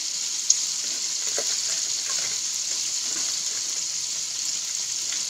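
Chicken pieces frying in hot oil: a steady sizzle, with one light click about half a second in.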